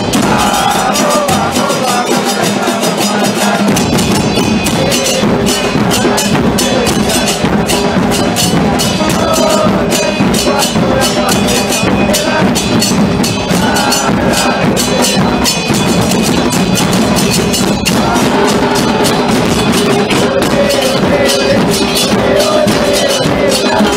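A football supporters' group singing a chant together over a continuous beat of drums and percussion.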